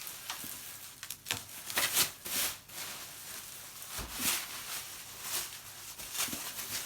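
Postal packaging being pulled and unwrapped by hand: irregular rustling and crinkling, with a dull thump about four seconds in.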